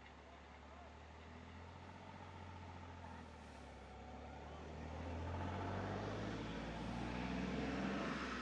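A motor vehicle's engine running steadily, with a low hum that grows louder through the second half.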